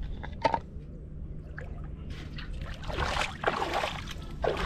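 Bare feet wading and splashing through shallow river water, several splashy steps from about two seconds in, with a short sharp knock about half a second in.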